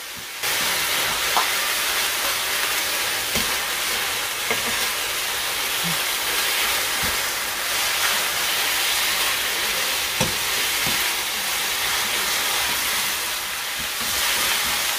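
Glass noodles and pork sizzling in a nonstick wok while being stir-fried with a wooden spatula: a steady frying hiss that starts about half a second in, with a few scattered knocks of the spatula against the pan.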